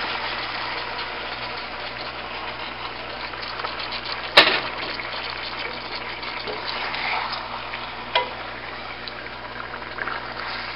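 Hairtail pieces sizzling and bubbling in a wok in freshly added sweet-and-sour soy sauce. A wooden spatula knocks sharply against the pan about four seconds in and again about eight seconds in.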